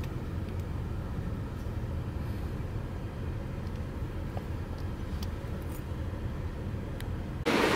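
Steady low road rumble inside a moving car's cabin, with a few faint clicks.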